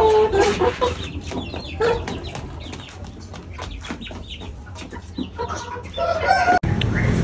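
Several backyard chickens clucking and squawking in short, rapid calls, the alarm calls of hens being chased to be caught. The calls cut off suddenly near the end.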